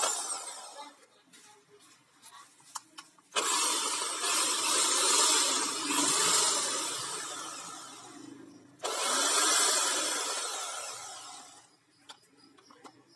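A short metal clatter, then a handheld power tool runs twice. About three seconds in it starts abruptly and runs for some five seconds, fading at the end; it then starts again at once and dies away over about three seconds.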